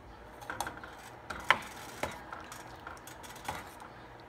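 Metal ladle stirring green peas into thick gravy in a stainless steel saucepan, with a few sharp clinks and scrapes of the ladle against the pot at irregular intervals.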